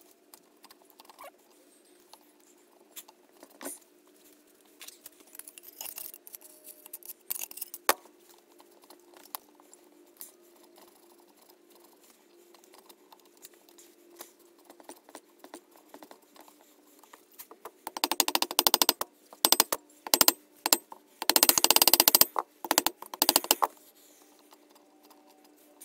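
BSA Fury twin-cylinder barrel being worked down over the pistons onto the crankcase by hand. Scattered light metal clicks and knocks come first. About two-thirds of the way through there are several loud bursts of rapid metal-on-metal clatter, all over a faint steady hum.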